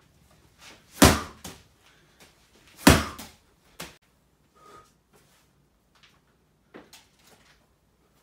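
Two heavy slam-ball slams onto a brick floor, about two seconds apart, each a loud thud followed by a smaller knock; a few faint knocks follow near the end.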